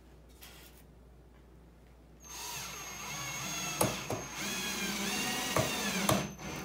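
Cordless drill driving a screw into a wooden foot: the motor starts about two seconds in and runs for about four seconds, its whine wavering in pitch, with a few sharp clicks, then stops near the end.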